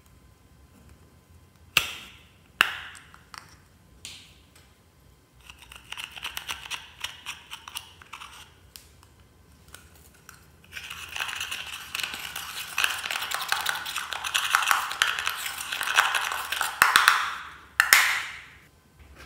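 Fluffy slime being mixed by hand: a few sharp pops of trapped air, then runs of dense crackling and squishing, the loudest and longest in the second half.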